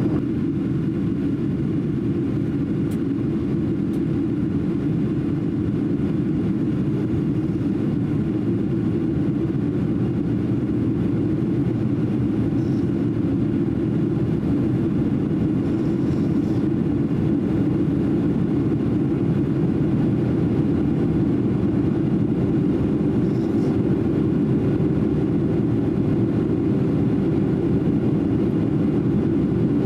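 Steady cabin drone of a Boeing 767-300 airliner in descent: jet engine and airflow noise heard from a seat near the wing engine, an even low hum with no change.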